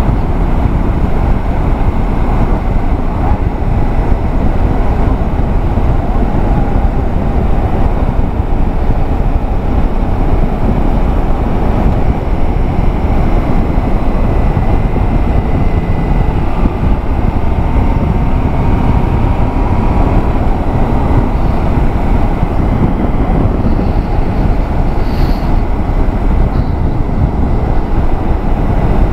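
Road vehicle travelling at steady speed: continuous engine and road noise with wind on the microphone.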